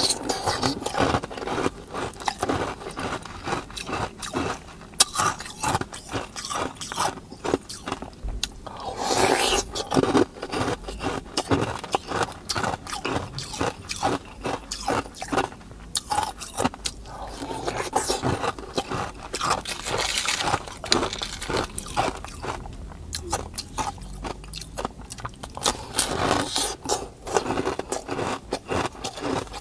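Close-miked biting and chewing of frozen ice cream: a dense run of crunching and crackling mouth sounds, with louder bouts now and then.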